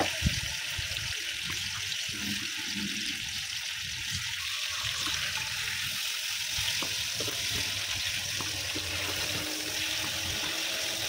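Fish deep-frying in hot oil in a pan: a steady sizzle with scattered small pops, and one sharp clack just after it begins.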